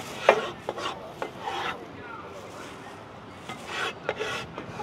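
A cleaver scraping across a plastic cutting board as chopped meat is gathered up, with a few sharp knocks of the blade on the board in the first second or so and rasping scrapes later.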